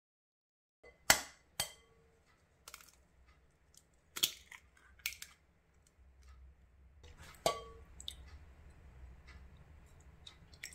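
An egg tapped sharply twice against the rim of a glass mixing bowl and cracked open, the glass ringing briefly, with lighter clicks of eggshell after. Near the end a softer clink against the glass and milk being poured into the bowl.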